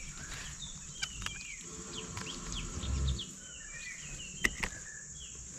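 Forest birdsong of short chirps and whistled calls over a steady high insect drone. A few sharp snaps break in, the loudest about four and a half seconds in, and there is a brief low rumble near the middle.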